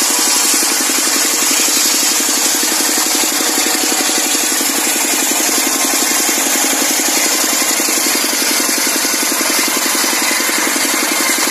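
Horizontal single-cylinder diesel engine running steadily, belt-driving a large circular saw blade that is cutting lengthwise through a log. The rasp of the blade in the wood sits over the engine's rapid, even beat.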